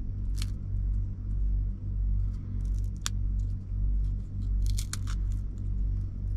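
Low steady rumble of an idling diesel engine, with a few short crisp cracks as dry toasted bread is snapped by hand: once about half a second in, once about three seconds in, and a quick cluster around five seconds.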